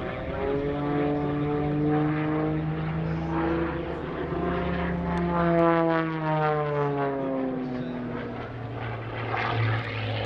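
Propeller-driven piston engine of an MXS aerobatic monoplane droning overhead during aerobatics. Its pitch climbs, then falls away from about six seconds in, and settles to a lower steady drone near the end.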